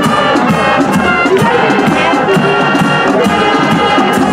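High school marching band playing its fight song live on the field: trumpets and trombones carrying the tune over a steady marching drumbeat.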